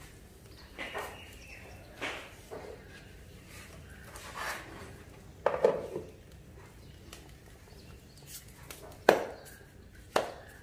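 Hands pressing and patting a ball of roti dough on a floured wooden board, giving soft, irregular thuds and a few sharper knocks, the loudest about nine seconds in.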